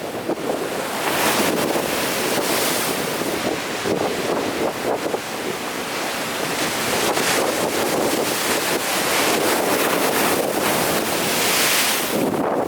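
Big ocean surf breaking and washing along the shore: a continuous hiss that swells every few seconds, with wind buffeting the microphone.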